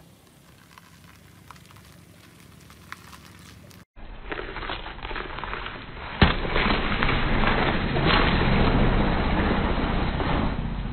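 Faint background noise, then a car rolls its tyre onto a whole watermelon, which bursts with one sharp crack about six seconds in. Steady car engine and tyre noise follows.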